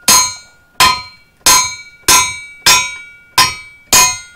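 A hammer striking mixed Tannerite on a steel plate, seven hard blows about every two-thirds of a second, each leaving the steel ringing. The binary explosive is being crushed by impact and does not detonate.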